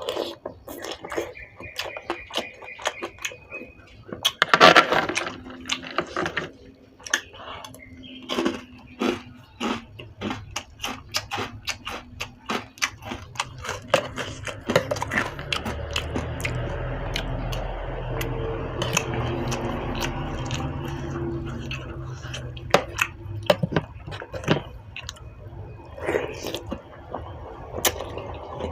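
Noodle-soup eating sounds: slurping and chewing, with many short clicks of a spoon and chopsticks against the bowl. About halfway through, a low rumble swells and fades under the eating.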